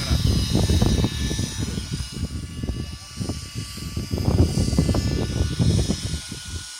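GAUI NX4 radio-controlled helicopter in flight, its rotor and drive giving a steady high whine, under heavy wind buffeting on the microphone that rises and falls.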